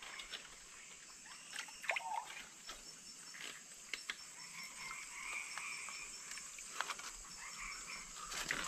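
Faint night chorus of frogs and insects, one chirping in a steady repeating pulse. Now and then short clicks and small splashes come from hands feeling among stones in shallow stream water.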